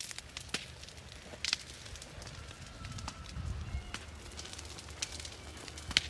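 Brush and rubbish fire crackling, with sharp pops scattered irregularly through it over a low rumble.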